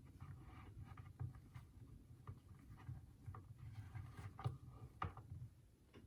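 Faint handling noises of a doll and its packaging: soft rustling with scattered light taps and clicks, the sharpest about four and a half and five seconds in.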